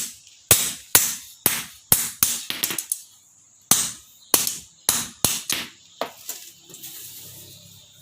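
Blacksmith's hammer blows on metal, sharp ringing strikes about two a second. A quick flurry of lighter taps comes about two and a half seconds in, then a short pause. A second run of blows weakens near the end, leaving a faint low hum.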